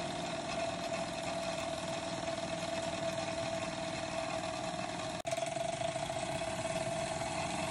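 Wilesco-driven paper-strip music box running: a steady mechanical rattle of the drive shaft and gearing, with one music-box note ringing on and slowly fading. A single sharp click about five seconds in.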